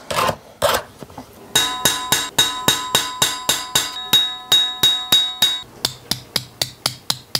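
Jeweler's hammer striking metal: a few scattered taps, then even strikes about four a second with a steady metallic ring under them. Near the end of the ringing the strikes turn faster and drier as the hammer dots a texture into a copper disc set on a wooden stump.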